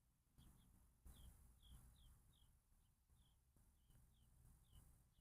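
Faint crickets chirping, a short chirp about twice a second, over a faint low rumble of outdoor background.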